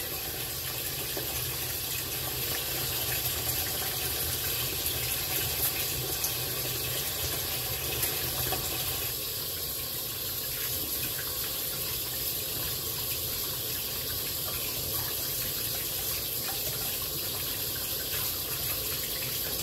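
Kitchen faucet running steadily while hands are washed under it after handling raw poultry. The sound of the stream changes a little about halfway through.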